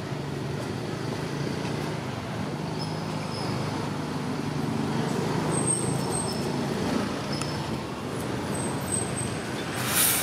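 Steady low rumble of distant motor traffic, with a few faint, short high chirps over it. A brief loud burst of noise comes just before the end.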